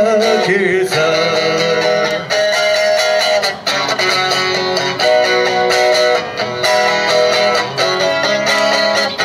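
Electric guitar strummed through an amplifier, with a man singing a song live through a PA.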